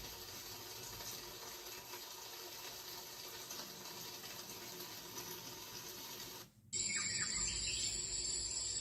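Wake-up light alarm clock's built-in sleep sounds playing through its small speaker: a steady rain recording, which cuts out briefly about six and a half seconds in and changes to a louder, high chirping cricket sound.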